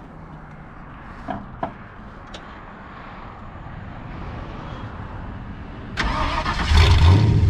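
Swapped-in fuel-injected Ford 5.0 V8 being started: two light clicks about a second and a half in, then about six seconds in the starter cranks briefly and the engine fires and runs loudly.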